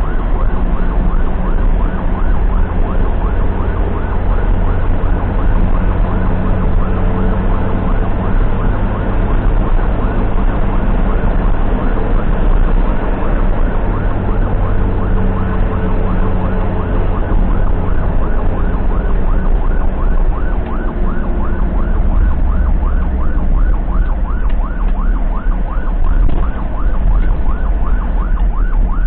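Ambulance siren in a fast repeating yelp, several quick rising sweeps a second, heard from inside the ambulance over the steady low rumble of the moving vehicle.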